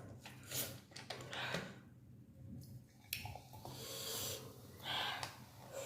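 Faint mouth sounds of eating hot, spicy thukpa noodle soup: short slurps and sharp breaths, with a longer hiss from about three to four and a half seconds in.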